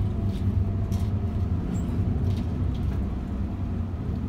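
Intercity bus's engine and cabin rumbling low and steady while it crawls in heavy traffic, with a few faint clicks.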